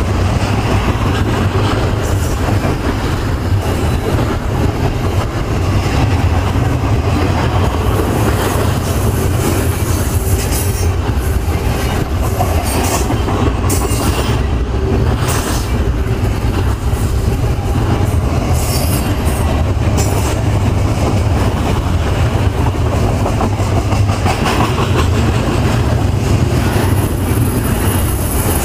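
Double-stack intermodal well cars rolling past: a steady heavy rumble and clatter of steel wheels on rail. A few brief high squeals from the wheels come and go over it.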